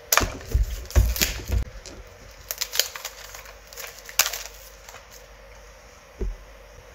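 Clear plastic wrapping being peeled and torn off a cardboard earbud box: irregular crinkles and crackles, densest in the first two seconds, with a low thump about six seconds in as the box is handled.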